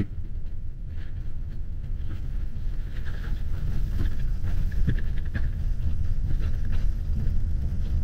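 Steady low rumble of road noise inside a moving coach bus, partly thinned by noise reduction.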